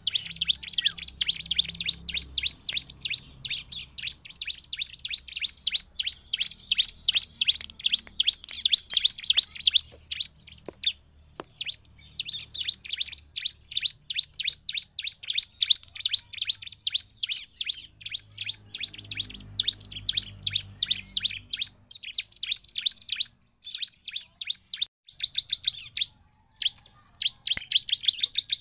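Bar-winged prinia (ciblek) in full song: fast, unbroken runs of sharp, high chirping notes, broken by short pauses about ten seconds in and again near the end.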